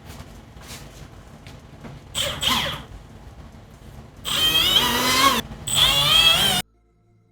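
A power tool running in bursts over a steady low rumble. Two short falling whines come about two seconds in, then two longer, louder bursts with a wavering squeal. Everything cuts off suddenly near the end.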